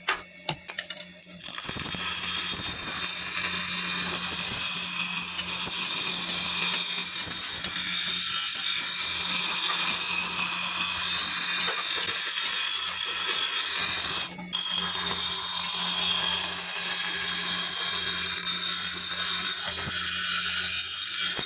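Electric grinder grinding leaf-spring steel for a machete blade: a steady rough hiss of steel on the abrasive over a constant motor hum. It stutters in the first second or so and breaks off briefly about 14 seconds in.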